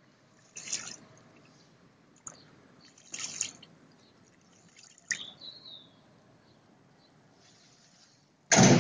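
Feral pigeons bathing in a shallow puddle, splashing water with their wings and bodies in short bursts a few times, with a much louder burst near the end.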